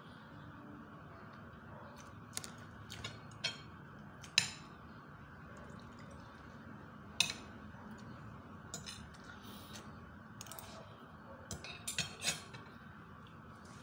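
Metal fork and spoon clinking and scraping on a plate while a meal of fish and rice is eaten. The clinks are scattered, with the sharpest about four seconds in and seven seconds in, and a quick cluster near the end.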